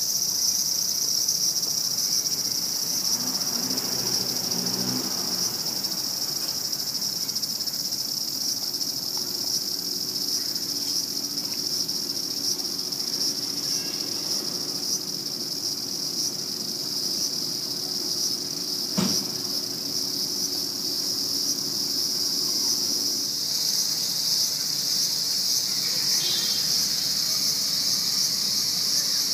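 Steady, high-pitched chorus of insects buzzing continuously. A faint low hum joins through the middle stretch, and a single sharp click sounds about two-thirds of the way through.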